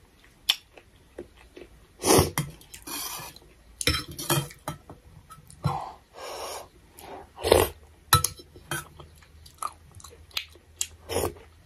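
Eating noodle soup with a spoon: irregular slurps and chewing sounds, with short clicks of a steel spoon against a steel bowl in between.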